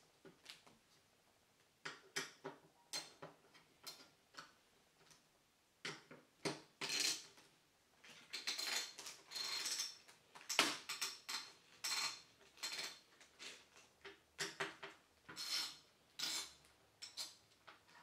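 Irregular metallic clicks, taps and short scrapes of hands working inside a steel PC case while fitting a motherboard. Sparse at first, the clicking and scraping grows busier and more continuous a little under halfway through.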